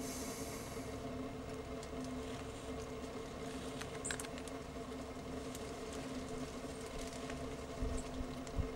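A steady mechanical hum with a low rumble underneath, a few faint ticks, and two dull low thumps near the end.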